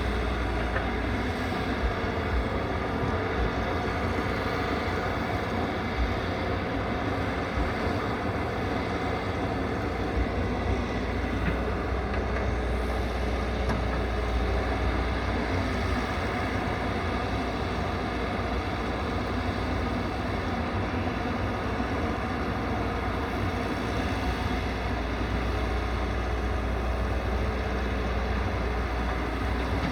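Excavator's diesel engine running steadily, a continuous low hum with no pauses or changes in pitch.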